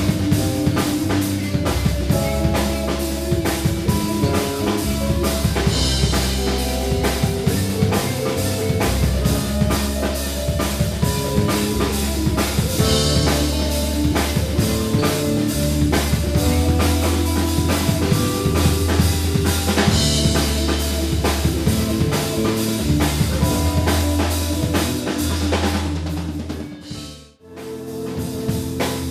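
Live band playing an instrumental passage: full drum kit with kick drum and rimshots over bass and guitar. Near the end it drops out abruptly for about a second, then the band comes back in.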